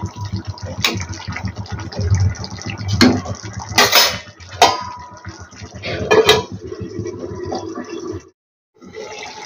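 Fish-ball curry gravy simmering in a steel kadhai with a steady bubbling hiss, while a metal spatula and then a steel lid clank against the pan in several sharp knocks as the pan is covered to cook.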